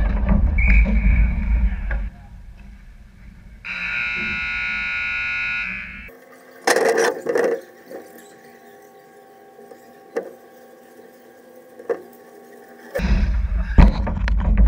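Ice rink's horn sounding one steady, loud blast of about two seconds, about four seconds in, the signal for the end of the game. Before it there is skating and rink noise, and near the end there are loud rustles and knocks as a glove handles the net camera.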